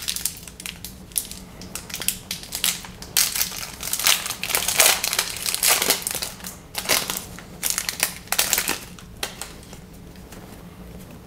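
Crinkling, crackling plastic-foil wrapper of a trading card pack being torn open and handled, in irregular bursts that die down near the end.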